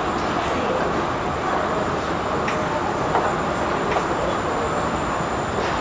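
Steady rumbling noise of a metro station passage, with a few footsteps at walking pace.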